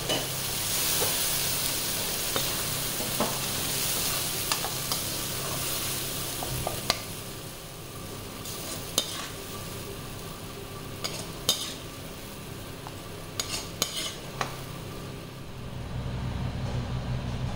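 Sliced onions and tomatoes sizzling in a kadai while a metal spoon stirs them. The sizzle fades about halfway through, and the spoon then clinks and scrapes against the pan as the masala is scooped out. A low steady hum comes in near the end.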